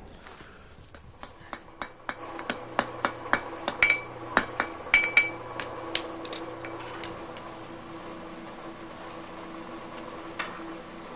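Hand hammer striking a red-hot iron bar on an anvil: a quick run of ringing metallic blows, about three to four a second, that stops about six seconds in. One more clink comes near the end, over a steady low hum.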